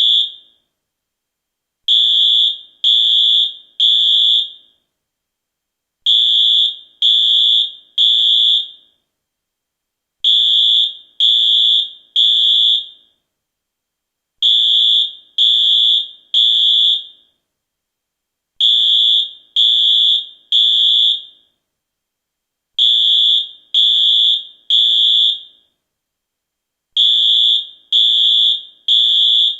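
US fire alarm sounding the temporal-three evacuation pattern: three high-pitched beeps about a second apart, then a pause, repeating roughly every four seconds.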